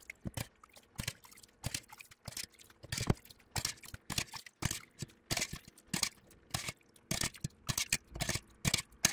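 Metal skimmer scraping and knocking against a stainless steel pot and colander while cheese curds are scooped out of the whey and tipped into a cloth-lined strainer, in a string of short, irregular clicks and scrapes.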